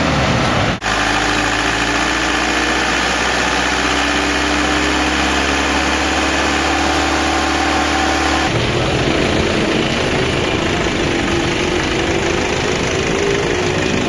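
Isuzu Highlander diesel engine running steadily. It drops out briefly about a second in, and about eight seconds in the note changes and runs a little higher.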